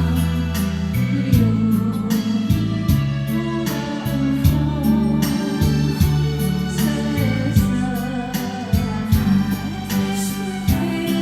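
Christian gospel-style music with a steady beat, sustained keyboard or organ chords and some singing.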